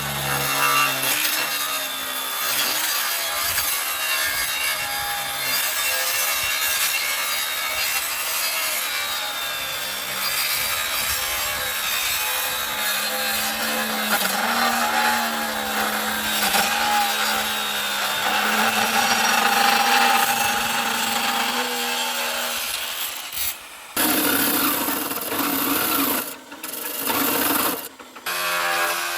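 Steady rasping of a tool cutting or abrading material, with a faint wavering whine under it; the sound drops out briefly a few times near the end.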